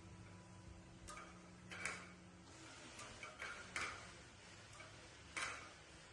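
Faint, irregular soft clicks and smacks of mouths chewing food, about half a dozen spread unevenly.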